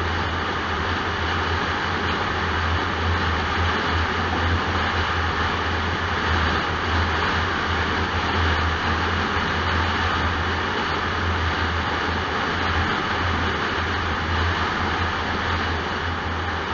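Car driving at motorway speed: steady tyre and road noise with a constant low drone.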